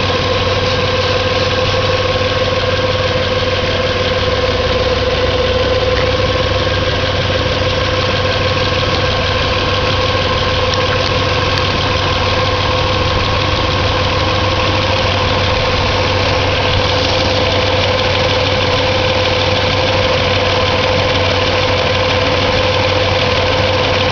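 1997 Nissan VQ V6 engine idling steadily, with a constant whining tone over the running sound. This is the noise the owner noticed after spraying Fluid Film.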